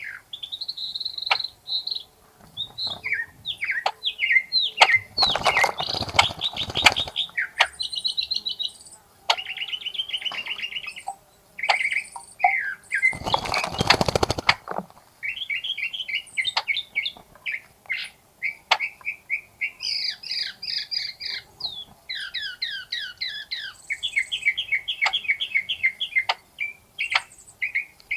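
Wild songbirds singing and chirping in quick repeated trills and phrases, with two bursts of splashing and wing-flapping as birds bathe in the water, the first about five seconds in and the second about halfway through.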